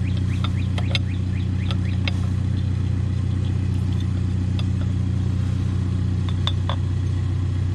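Steady drone of a brush chipper's engine running, with a few light metallic clicks from a screwdriver and a chrome cover being handled.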